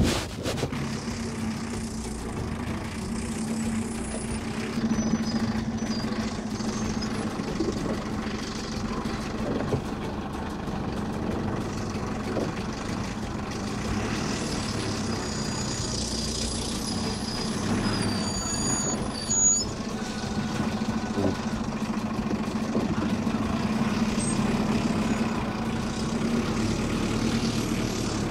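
Mercedes-Benz Unimog camper truck's diesel engine running steadily with a low hum as the truck crawls over muddy, rocky ground. A brief loud thump comes right at the very start.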